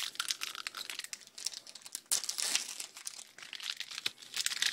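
Foil wrapper of a Pokémon booster pack crinkling and tearing as it is opened by hand, with a sudden louder burst of crackle about two seconds in.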